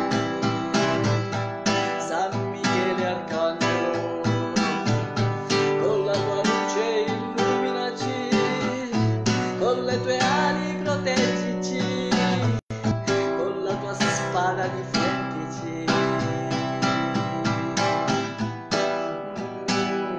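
Acoustic guitar strummed with quick, even strokes of ringing chords. The sound cuts out for an instant about twelve and a half seconds in.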